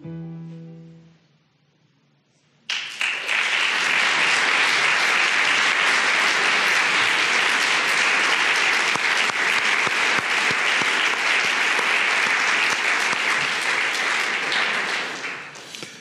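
The last notes of soft music die away, a moment of hush follows, then an audience breaks into steady applause that fades out near the end.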